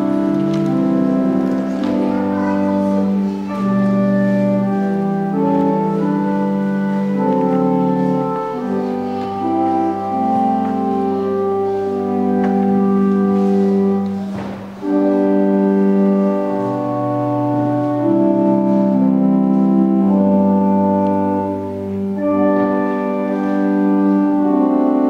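Organ music of slow, held chords, with a brief drop in level about fifteen seconds in.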